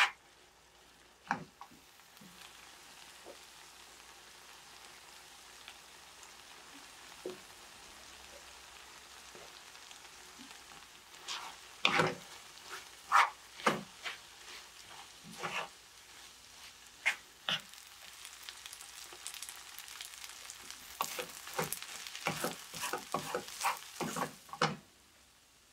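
Fried rice sizzling steadily in a non-stick frying pan while a wooden spatula stirs it, with scattered knocks and scrapes of the spatula on the pan and a quick run of them near the end.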